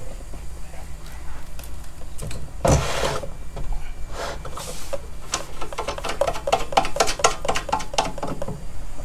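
Hand-adjusting a fishing line winder's line spool and set screw: a short rustle about three seconds in, then a run of quick clicks, about five a second, over a low steady hum.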